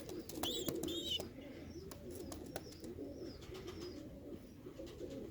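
Birmingham Roller pigeons cooing, low and wavering, with scattered sharp clicks and two short high chirps about a second in.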